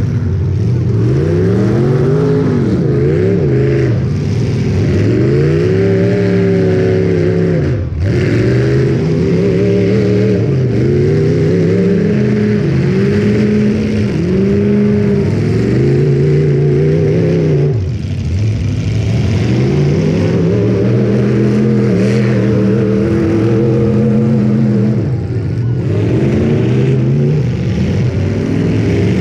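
Demolition derby car engines revving up and down over and over, more than one engine at times, with short let-offs between bursts.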